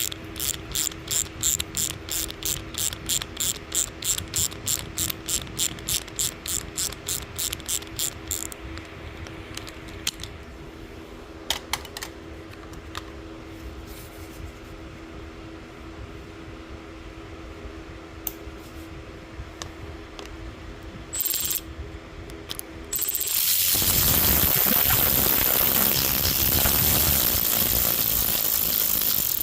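Ratchet wrench clicking steadily, about three or four clicks a second for some eight seconds, as a screw is backed out; then a few scattered light metal clicks. In the last six seconds a loud, steady rushing noise comes in and holds.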